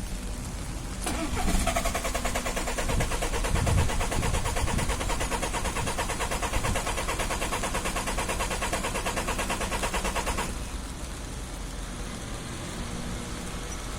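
An engine being cranked on its starter in a hard start, with a fast, even chattering that goes on for about nine seconds while the engine catches. About ten seconds in the cranking stops and the engine carries on running at a lower, steady idle.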